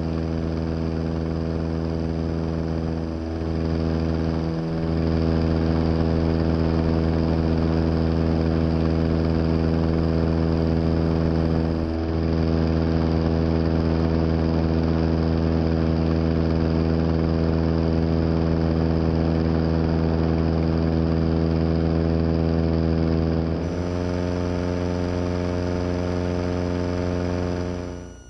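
Zenith 801 floatplane in flight: its piston engine and Hartzell constant-speed propeller give a loud, steady drone. The drone steps abruptly in tone and level a few times, with the last step in pitch near the end, and then it fades out.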